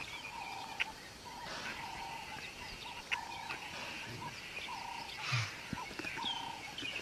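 Birds calling: a short mid-pitched note repeated steadily, a little faster than once a second, with scattered higher chirps.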